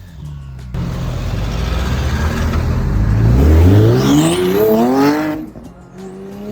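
Porsche 911 Turbo S twin-turbo flat-six under hard acceleration, its note climbing steadily in pitch, then falling away suddenly about five seconds in.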